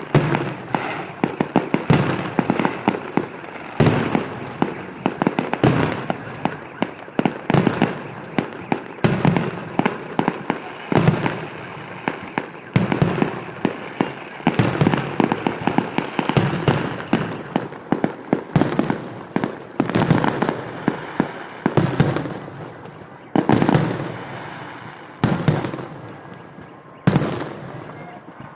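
Fireworks salute: a rapid run of aerial shells bursting with sharp bangs, about one to two big reports a second, with crackling and echoing between them.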